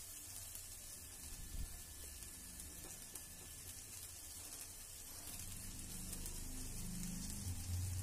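Faint, steady sizzle of bitter gourd and tomato masala frying in an aluminium pan, with a low rumble coming in about five seconds in.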